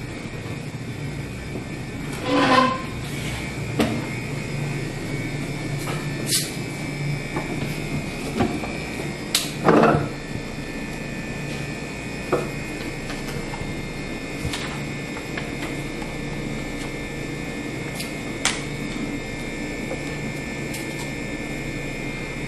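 Convenience-store room tone: a steady machine hum with a thin high whine, under scattered light knocks and clicks of handling at a table, and two brief louder sounds about two and a half and ten seconds in.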